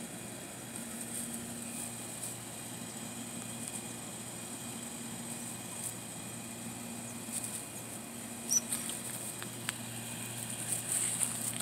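Quiet garden background: a steady low hum and a faint high hiss, with scattered light rustling and ticks that grow busier over the last few seconds as the leaves are brushed.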